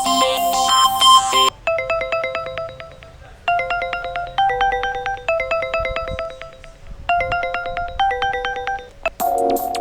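Android 5.1 Lollipop stock ringtones playing in turn: a dense electronic tune ends about a second and a half in, followed by a ringtone of short, bright melodic note phrases repeated with brief pauses. Near the end another electronic ringtone with a beat starts.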